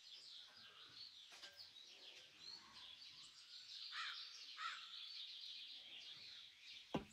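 Faint birds chirping and twittering in the background, with a single sharp click near the end.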